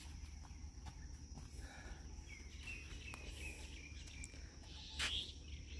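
Faint outdoor evening ambience: a steady high insect drone with birds chirping briefly in the middle, and faint footsteps on dirt as a person walks. A single louder thump comes about five seconds in.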